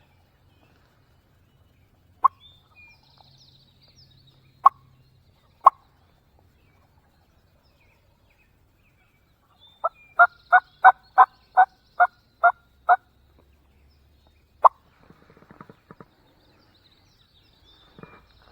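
Wild turkey calling: a few single sharp clucks, then a run of about nine evenly spaced yelps at roughly three a second, then one more cluck.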